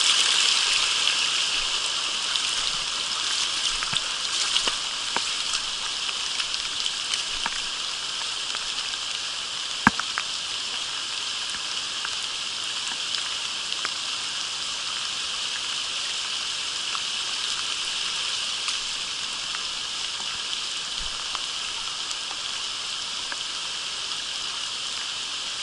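Steady hiss of rain falling onto a shallow, rocky stream, mixed with the rush of the stream's water over the stones. A few small ticks are scattered through it, the sharpest about ten seconds in.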